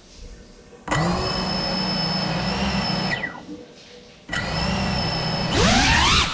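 6S GEPRC Cinelog35 cinewhoop's brushless motors and propellers spinning up abruptly about a second in to a steady high whine, winding down with a falling pitch around three seconds. They throttle up again just past four seconds, the pitch rising sharply near the end.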